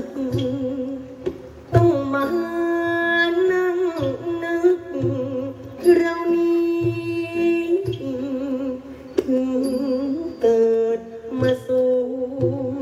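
Music: a sung melody with vibrato, long held notes, over a steady low beat.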